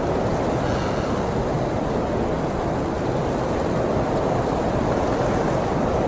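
Steady rushing wind buffeting the microphone, a dense, even noise heaviest in the low end.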